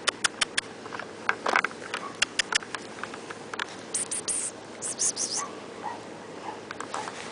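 A small fluffy pet scrambling about right at the microphone: a quick run of sharp clicks and taps, then two short hissing bursts around the middle.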